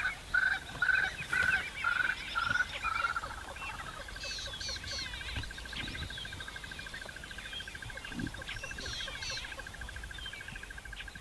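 Wild animal calls: a short call repeated about twice a second for the first three seconds, which then runs into a long, fast, even trill at the same pitch. Brief higher bird chirps sound over it about four seconds in and again near the end.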